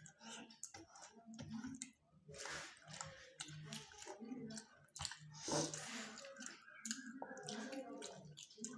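Close-miked chewing with wet mouth clicks and smacks from people eating rice and curry by hand. Fingers squish and mix the rice on steel plates. Irregular short clicks run throughout, with two longer noisy smears, one a couple of seconds in and one near the middle.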